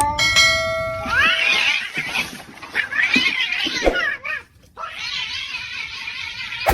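A cat yowling and meowing in a string of short calls that rise and fall, broken by a brief pause about four and a half seconds in.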